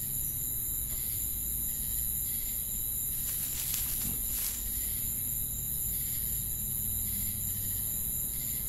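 Night-time field ambience: crickets and other insects keep up a steady, high-pitched chirring over a low rumble. A brief rustling swish comes about three to four and a half seconds in.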